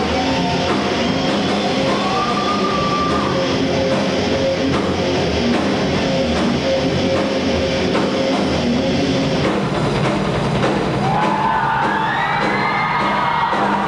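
Heavy metal band playing live: distorted electric guitars and a drum kit, loud and dense. About nine seconds in the cymbal hiss stops and wavering, gliding high tones take over.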